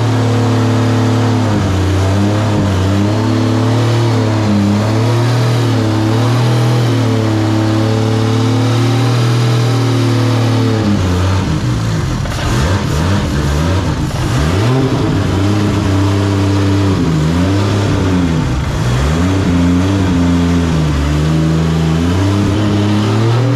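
Freshly rebuilt, turbocharged Toyota 2JZ straight-six running on its first start after the rebuild, still cold. It runs steadily at first, then the engine speed rises and falls several times over roughly ten seconds before settling back to a steady run near the end.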